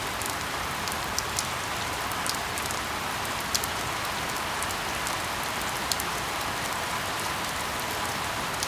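Steady rain falling, an even hiss, with single sharp drop hits standing out now and then at irregular moments.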